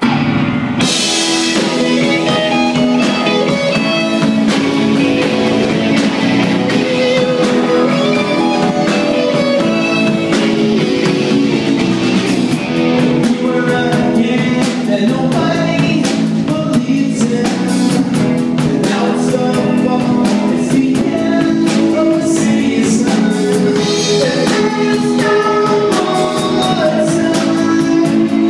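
Live rock band playing at full volume, with a drum kit, electric guitars and a keyboard, and a man singing lead vocals over them.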